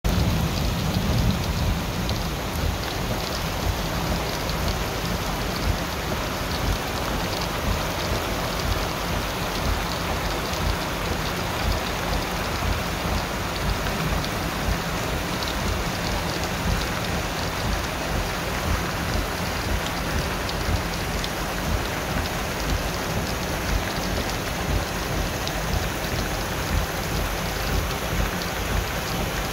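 Torrential downpour on pavement and grass: a loud, steady, dense rain noise with a constant low rumble underneath.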